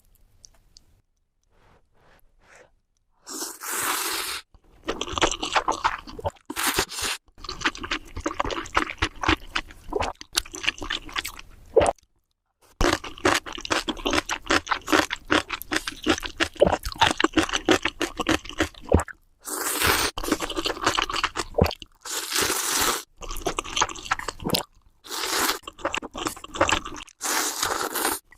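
Close-up eating sounds: rapid crunching and chewing of food in stretches a few seconds long, broken by short pauses, after a nearly quiet first three seconds.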